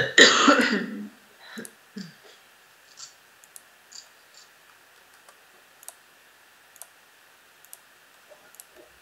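A brief harsh breathy burst from a person, cough-like, in the first second. Then sparse computer mouse clicks, roughly one a second, picking points and commands in CAD software.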